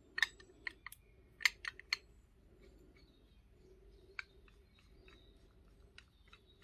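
Sharp clicks and light taps of small hard parts being handled: a quick cluster of clicks in the first two seconds, then single clicks spaced a second or two apart.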